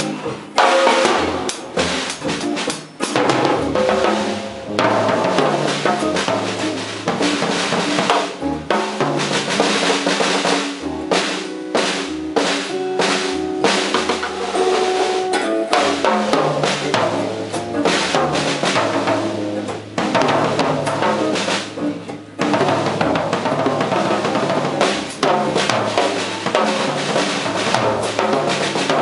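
Jazz drum kit played with sticks: busy, irregular strokes on snare, toms and bass drum with ringing cymbals, over held upright double bass notes.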